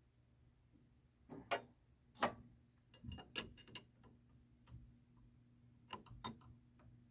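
Scattered sharp metal clicks and knocks of a wrench working on a hydraulic hose fitting, starting about a second in, with a quick cluster of them in the middle, over a low steady hum.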